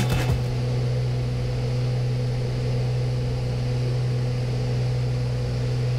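Steady drone of the Beechcraft Baron B55's twin piston engines and propellers in flight, heard inside the cockpit: an even low hum that holds constant in pitch and level.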